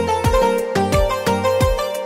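Background music with a steady beat of about two thumps a second under a melody.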